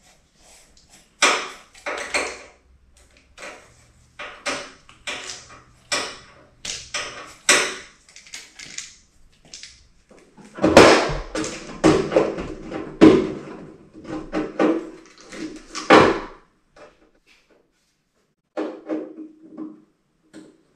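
Irregular clicks, scrapes and clatter of sheet-metal work on a rudder: clecos being pulled with cleco pliers and the metal hinge and rudder skin handled on the bench. A louder run of clatter comes about halfway through.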